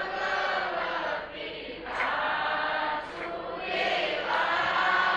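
A group of voices chanting a devotional chant in unison, in phrases with short breaks between them.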